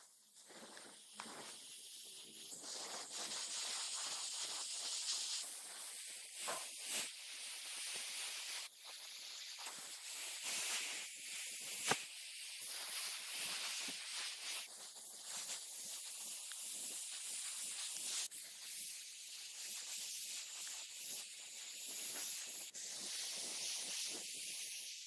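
Gravity-feed airbrush spraying nitrocellulose grey primer thinned 1:1 with N.C thinner: a hiss of air and paint mist that swells and eases, with one sharp click about halfway through.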